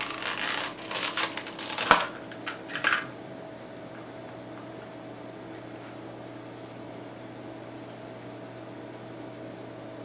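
Clear plastic clamshell packaging of a desktop processor being opened and handled, crackling and clicking for the first three seconds with one sharp snap just before two seconds in. After that there is only a steady low hum.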